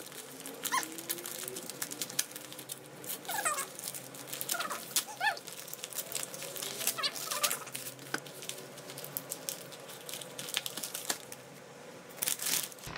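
Kraft paper mailer wrapping being handled, crinkling and crumpling in many short crackles as a package is unwrapped by hand. A few short chirps sound between the crackles.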